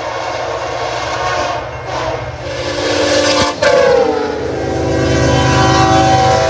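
Train horn sounding a sustained chord over the low rumble of a passing train. Just after the middle the horn's pitch slides down and then holds, as the locomotive goes by.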